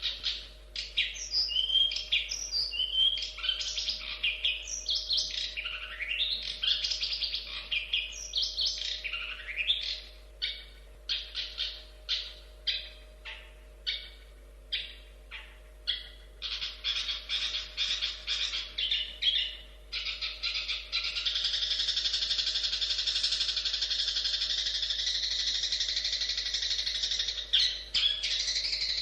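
Long-tailed shrike (cendet) singing: a varied run of quick whistled glides and fast repeated notes, then, about two-thirds of the way through, a continuous fast scratchy chatter.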